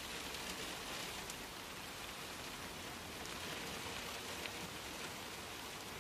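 Steady, even hiss of the ambience inside a vehicle's cab, with a few faint ticks.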